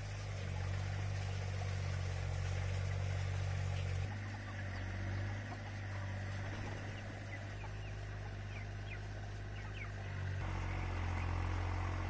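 Chickens calling with short high chirps in the middle, over a steady low engine hum from a small tractor, which gets a little louder near the end.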